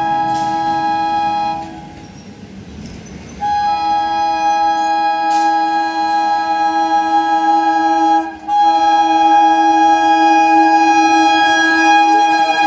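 Air horn of an EMU local train approaching at speed: a blast that stops about two seconds in, a short pause, then one long blast of about nine seconds with a brief break near the middle. Right at the end its pitch begins to fall as the train arrives.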